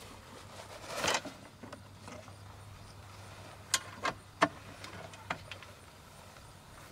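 A fold-out camp shower enclosure being opened: the plastic rifle case housing it swung open and its aluminum U-channel arms swung out, dropping the curtain. A short rustle comes about a second in, then several sharp clicks and knocks of the arms near the middle.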